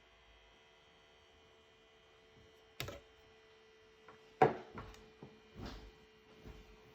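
Scattered clicks and knocks of small objects being handled, the loudest about halfway through, over a steady electrical hum.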